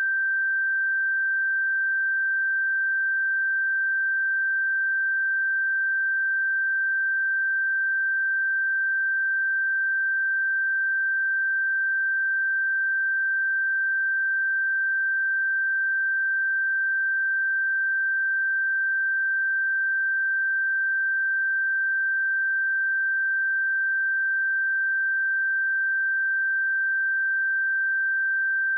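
Pure 1566 Hz sine-wave test tone, held at one steady pitch and level throughout.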